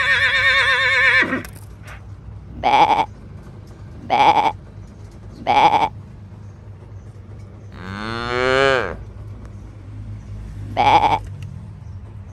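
Farm animal calls: a wavering sheep bleat at the start, three short calls about a second and a half apart with one more near the end, and one long cow moo a little past the middle, rising then falling in pitch.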